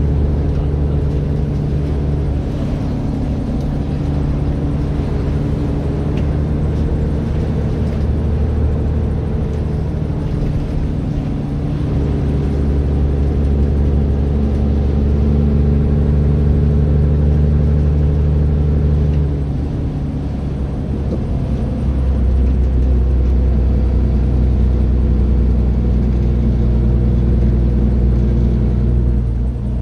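Scania bus engine running steadily under way, its note shifting a few times, with a short dip in loudness about twenty seconds in.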